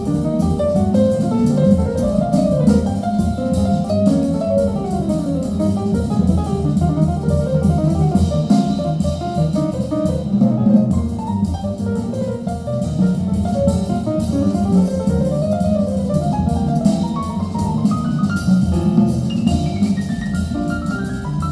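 Jazz-style music with drum kit and guitar, played back through a horn loudspeaker system in a listening room.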